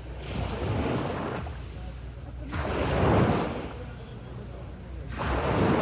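Sea waves breaking and washing up a beach: three surges about two and a half seconds apart, each swelling and then fading away.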